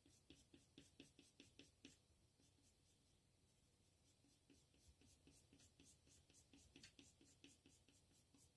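Faint scratching of a Tombow colored pencil shading back and forth on paper in quick strokes, about four or five a second. It eases off about two seconds in and picks up again around halfway.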